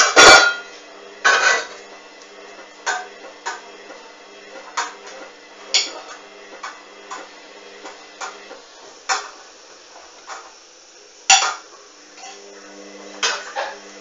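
Hoover A59 front-loading washing machine running: a steady low motor hum under irregularly spaced sharp clanks and clicks from the drum and its load, loudest just after the start and again about 11 seconds in.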